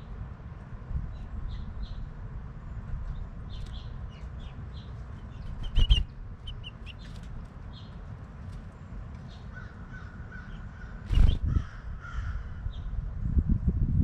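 House finches chirping: short high chirps repeated throughout, over a continuous low rumble. Two sharp thumps, about six and eleven seconds in, are the loudest sounds, and the rumble grows louder near the end.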